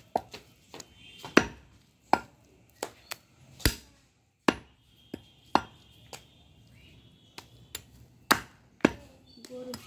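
A heavy butcher's cleaver chopping goat meat on a wooden stump chopping block: about a dozen sharp chops at uneven intervals, some much louder than others.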